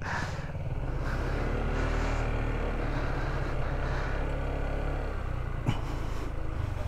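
Motorcycle engine running at low speed, picking up a little about a second in and then holding steady, with a single sharp knock near the end.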